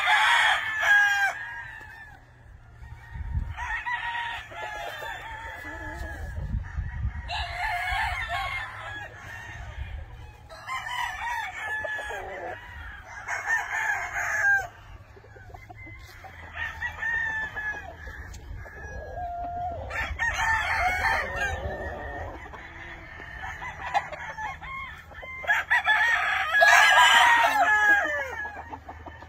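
Many gamecocks (fighting roosters) crowing one after another across a yard, their calls every few seconds and sometimes overlapping, with some clucking between them.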